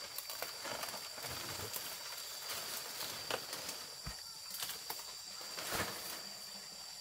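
Insects trilling steadily in constant high tones, with scattered short knocks and rustles, the loudest about halfway through and again near the end.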